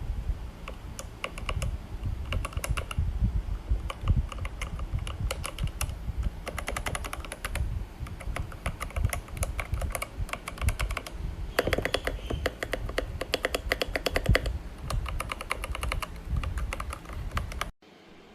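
Typing on an AJAZZ AK680 68-key hot-swap mechanical keyboard: rapid key clacks in bursts, with a faster, denser run in the middle, cutting off abruptly near the end.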